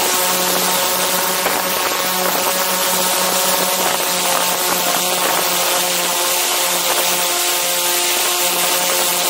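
Multirotor drone's motors and propellers buzzing steadily in a hover, heard from right beneath the rotors: a constant hum of several pitches over a rushing hiss of propeller wash.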